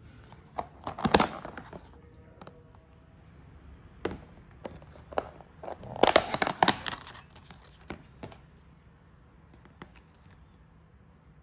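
Thin plastic food-container lid crackling and clicking as hands fit it on, press it down and lift it off: two bursts of crackling, about a second in and again around six seconds in, then a couple of single clicks.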